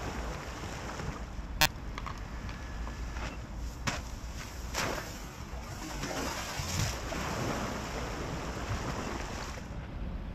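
A wakeboard cutting across the water close to the microphone, its spray hissing and splashing, loudest about six to seven seconds in, over steady wind and water noise. A few sharp ticks come through, the first about a second and a half in.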